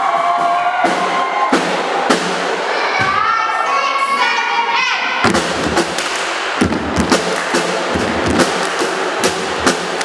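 A group of young people shouting and cheering, then from about halfway sharp hand claps in a repeating rhythm over music.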